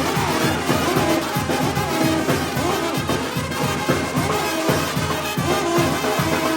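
Live Mexican banda brass band playing: trumpets and trombones carry the melody over a steady pumping low beat.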